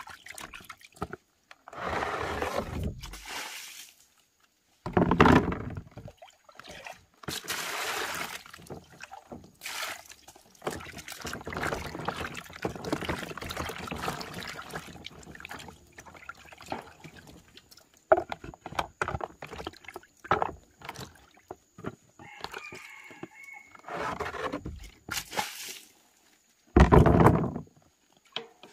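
Water sloshing and splashing in a plastic basin as hands scrub and rinse peeled root vegetables, coming in irregular bursts with louder splashes and pours now and then. A faint steady high tone runs underneath in the second half.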